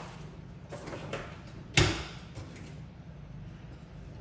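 Kitchen drawers being opened and shut during a hunt for a pastry brush: scattered knocks and clatter, with one sharp bang a little under two seconds in.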